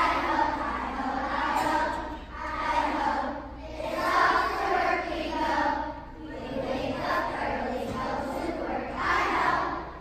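A large group of young children singing together in unison, in short phrases broken by brief pauses.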